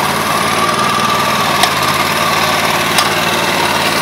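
Heavy-coat hydraulic airless paint sprayer running steadily, its pump drawing thick black coating from a bucket, with two short sharp clicks in the middle.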